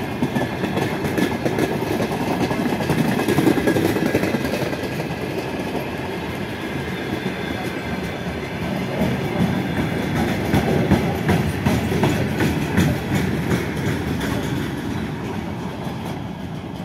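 Freight train wagons rolling slowly past, with a steady rumble and wheels clicking over the rail joints. The sound fades near the end as the last wagon moves away.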